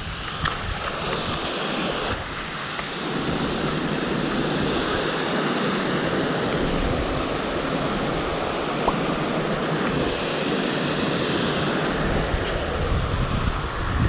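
Small waterfall rushing steadily over rocks in a stone channel, with wind rumbling on the microphone at times.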